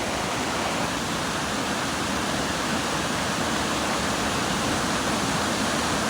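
A large waterfall's steady roar of falling water, an even rushing noise that holds unchanged.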